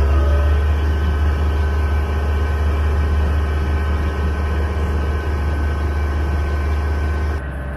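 Boat engine running steadily: a deep, even drone with a whine of steady tones above it. It drops and changes abruptly near the end.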